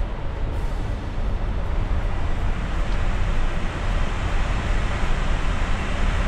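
Steady rushing noise on the flight deck of an Airbus A350 in cruise flight, heaviest in the low end.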